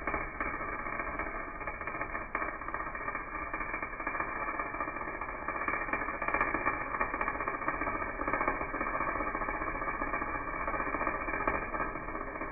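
Arc welder laying a bead on steel: a steady crackling sizzle with scattered sharp pops of spatter, stopping suddenly at the end as the arc is broken.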